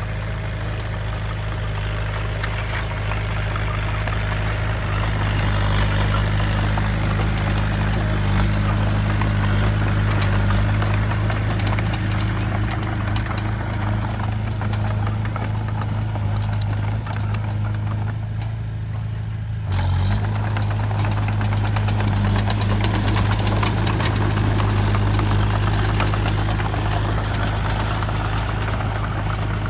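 Diesel engine of heavy earthmoving machinery running with a steady low drone, swelling slightly a few seconds in; the sound breaks off abruptly for an instant about twenty seconds in, then carries on.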